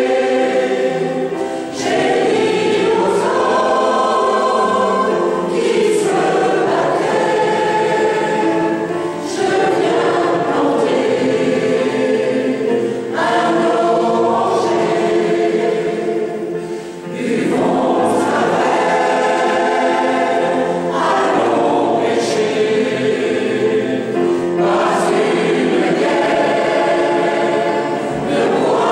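Mixed choir of men's and women's voices singing a song in French, phrase after phrase, with digital piano accompaniment, the sound ringing in a reverberant stone church.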